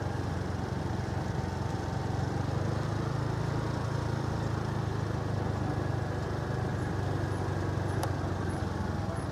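Motorcycle engine running steadily while riding, a constant low hum. A short click near the end.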